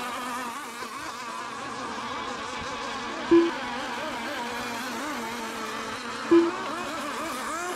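Several racing RC boats' engines buzzing at once, their overlapping pitches wavering up and down as they race. Two short loud beeps cut in, about a third of the way in and again three seconds later.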